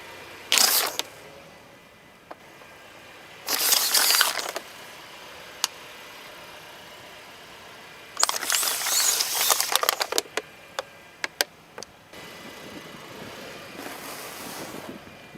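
Objects being crushed under a car's tyre: bursts of crunching and crackling, the longest about eight seconds in, with single sharp snaps and cracks between them.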